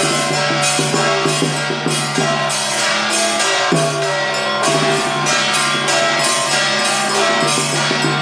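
Chinese Taoist temple ritual music: cymbals and drums beat several times a second over steady held tones.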